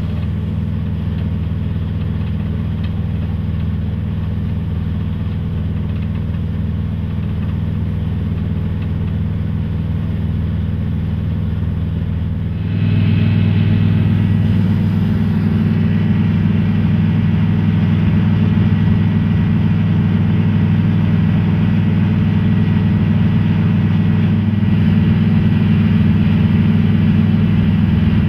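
A tugboat's engine running steadily with a low, even drone; it gets louder about halfway through and holds there.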